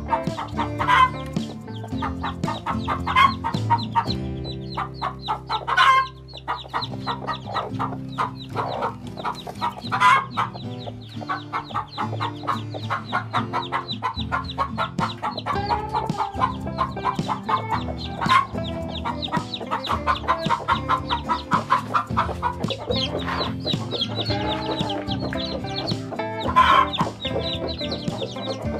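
A hen clucking, with a sharper call every few seconds, over steady background music.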